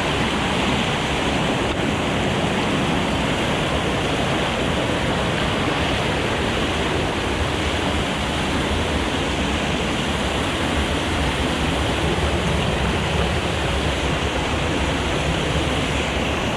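Mountain stream rushing over rocks: a loud, steady roar of cascading water close to the microphone.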